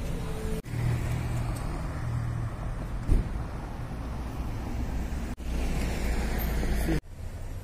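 City street traffic: cars driving past with a steady low rumble, cutting off abruptly and resuming a few times, with a short thump about three seconds in.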